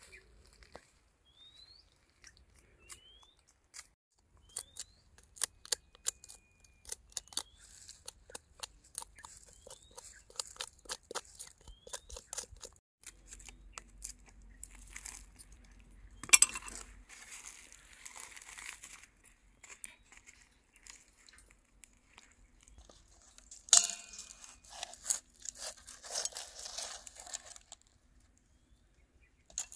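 Crisp food being torn and crunched, with scattered sharp clicks and clinks and two longer stretches of crunching partway through. A few short rising chirps sound in the first few seconds.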